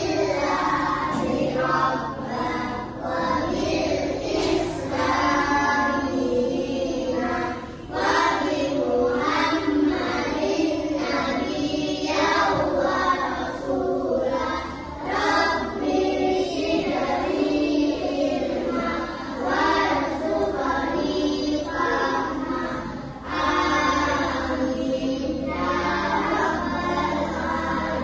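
A group of voices singing a song together, with music underneath.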